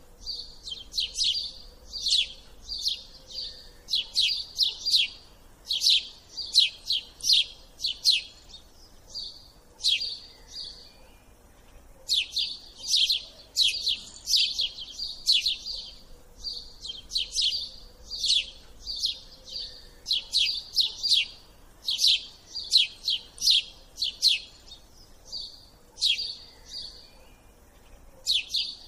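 A small bird chirping in quick runs of sharp, high, downward-sweeping notes, several a second, with short pauses between the runs.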